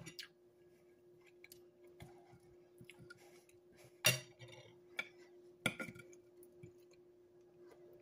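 Metal knife and fork clinking and scraping on a dinner plate while cutting through breaded chicken, with a few sharp clinks, the loudest about four seconds in and two more soon after. A faint steady hum underneath.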